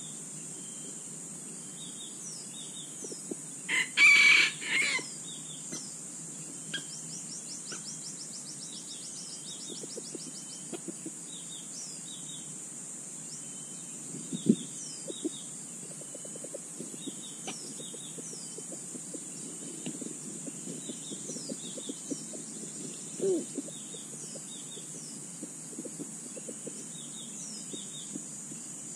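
Junglefowl rooster crowing once, a short, clipped crow in a few broken parts about four seconds in, the loudest sound. Around it, the fowl scratch and step in dry leaf litter with scattered faint rustles, over a steady high insect drone and repeated short falling chirps.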